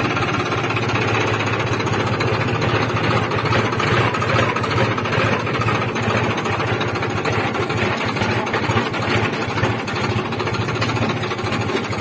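Farmtrac tractor's diesel engine running steadily while driving, heard from the driver's seat close to its upright exhaust.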